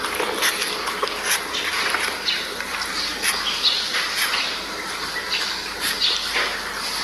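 A dog eating cooked rice from a plastic bowl: quick, wet chewing and licking, made up of a dense run of small clicks and smacks.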